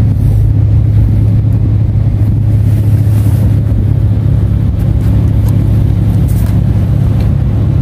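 A steady, loud, low engine drone that holds one even pitch without rising or falling.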